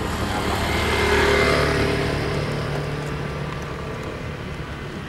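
Airbus A320 jet airliner at takeoff thrust passing overhead: the engine sound swells to a peak about a second and a half in, then slowly fades as the plane climbs away.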